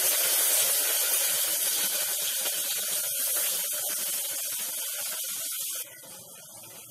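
Taro (arbi) frying in oil in a pan, sizzling with a steady high hiss that slowly fades as ingredients are tipped in, then drops abruptly to a low hush almost six seconds in.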